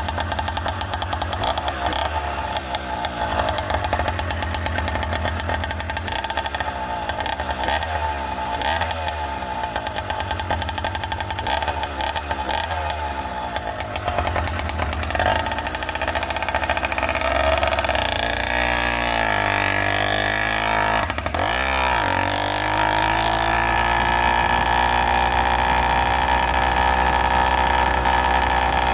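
Motorized bicycle's small engine running under way, its note rising and falling with the throttle. A little past two-thirds through it drops sharply and picks back up, then holds a steadier, slightly louder note.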